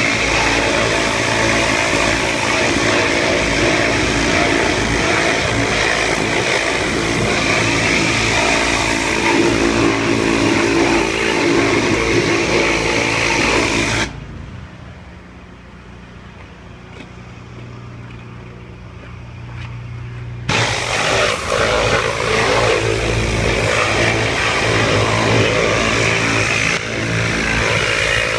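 Pressure washer spraying a high-pressure water jet onto metal grates, a loud steady hiss over the low hum of the machine's engine. About halfway through, the spray stops for about six seconds, leaving only the engine hum, then starts again.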